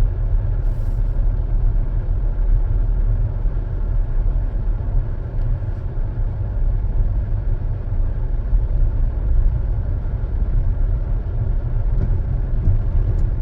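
Steady low rumble of a car driving, heard from inside the cabin: engine and tyre noise on a snowy road.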